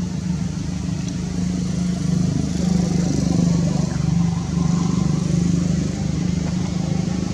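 A motor vehicle engine running steadily, a low drone that swells a little about two seconds in.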